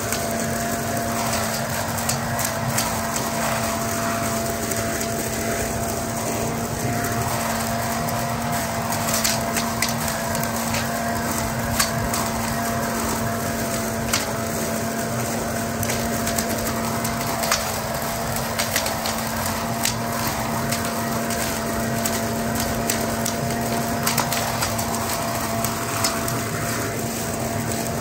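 Toro Ultra electric blower vac running steadily in vacuum mode, a motor and impeller whine over a rush of air, as dry leaves are sucked up the tube into the bag. Frequent sharp clicks and rattles come through as leaves and sticks strike the impeller.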